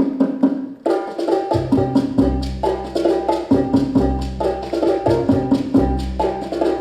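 Dance music with a fast, steady percussive beat; after a brief break, a deep bass line comes in about a second and a half in.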